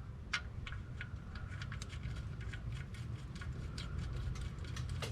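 Ratchet clicking in short irregular runs as the oil-pan drain plug is screwed in, over a low steady rumble.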